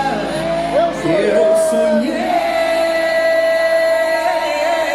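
Live band with a singer who slides through a few notes, then holds one long note from about two seconds in.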